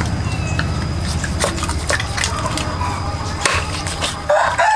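A few sharp knocks and cracks over a low steady hum, then a loud animal call begins near the end.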